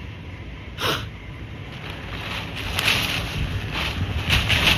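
Typhoon wind rushing and buffeting the microphone, with a short gust about a second in and the noise growing louder over the last two seconds.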